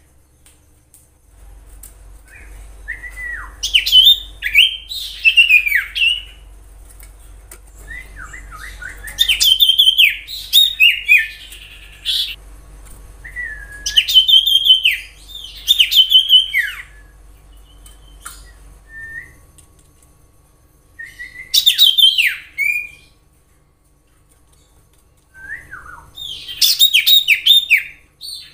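Common iora singing in bouts: five phrases of quick chirps and downward-sliding whistles, each a few seconds long, separated by short pauses.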